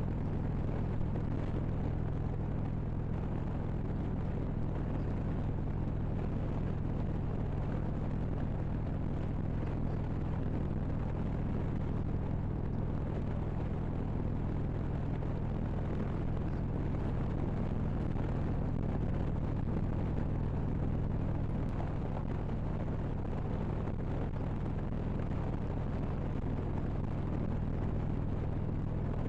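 Harley-Davidson Road Glide Ultra's V-twin engine running steadily at cruising speed, with wind and road noise, heard from the rider's position.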